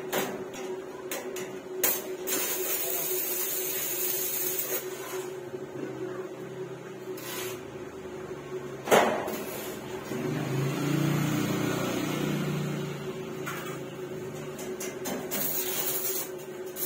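Electric arc welding on a steel grille frame: crackling, hissing arc in stretches, one starting about two seconds in and lasting a few seconds and another near the end, over a steady hum. A single sharp knock comes about nine seconds in.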